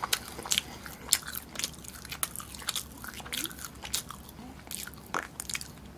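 Close-miked chewing of a hamburger: soft, wet mouth clicks and smacks at irregular intervals, with a few sharper ones in the first three seconds and again about five seconds in.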